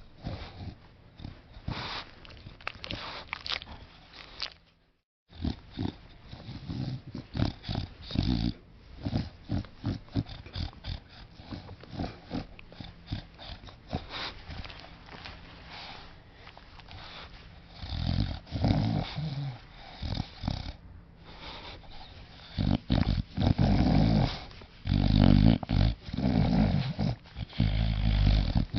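Bulldog snoring: irregular rough, snorting breaths that grow louder and heavier in the second half, with a brief break about five seconds in.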